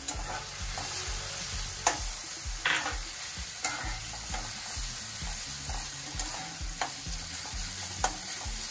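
Sliced onion and tomato sizzling as they are sautéed on high heat in a steel kadhai, stirred with a metal spatula that scrapes and clinks against the pan now and then.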